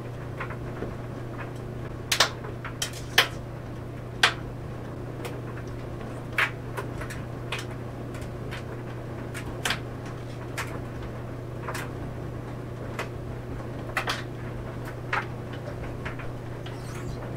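Clothes dryer running with a steady low hum as the laundry tumbles in the drum. Irregular sharp knocks and clicks come every second or two.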